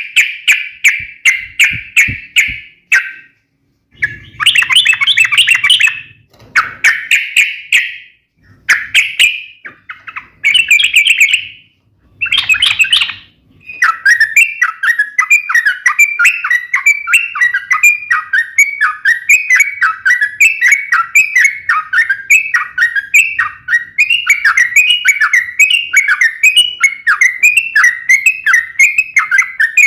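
Sooty-headed bulbul (trucuk) singing a sharp fighting song: short loud phrases with brief pauses during the first half. About halfway through it breaks into a continuous rapid run of repeated falling notes.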